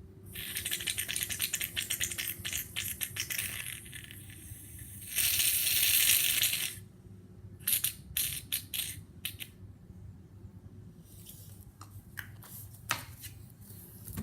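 Aerosol can of shaving foam shaken with a rapid rattle for about three seconds, then a steady hiss of foam spraying out for about a second and a half, followed by a few scattered clicks and taps.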